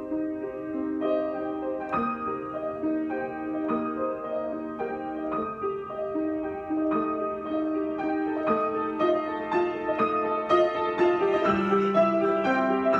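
Solo piano improvisation: unhurried melody over sustained notes, one note struck about every half second, growing fuller and a little louder near the end as a lower note comes in.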